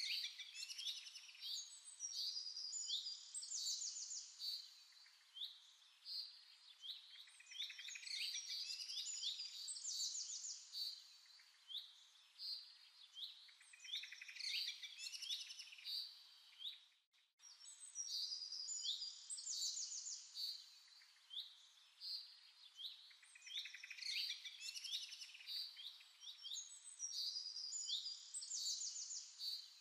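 Many small birds chirping and singing, with short calls and trills overlapping continuously and a brief break a little past halfway.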